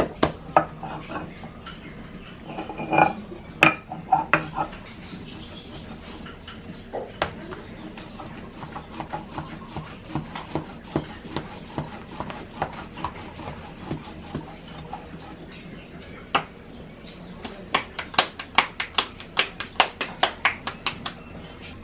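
Hands kneading masa dough on a stone metate, soft rubbing with a few dull knocks, then in the last few seconds a fast, even run of hand slaps, about four a second, as a tortilla is patted out between the palms.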